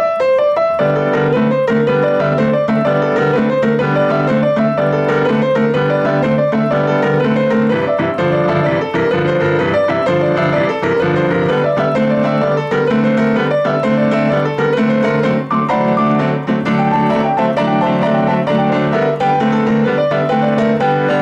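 Steinway Model D grand piano played in boogie-woogie blues style: quick right-hand chords and figures over a steadily repeating left-hand bass pattern.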